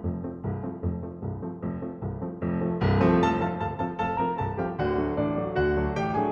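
Lighthearted soundtrack music with a regular bouncing bass; about three seconds in it grows louder and brighter as higher notes join.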